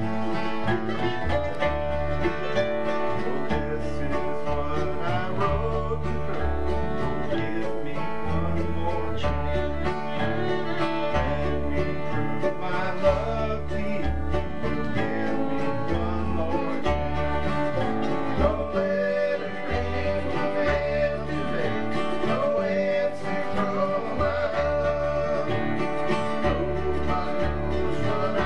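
Old-time string band playing a tune on fiddle, mandolin, acoustic guitar and upright bass, the bass plucking notes on a steady beat.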